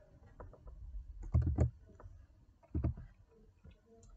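Computer keyboard keystrokes: a short cluster of taps about a second and a half in, and another couple near three seconds.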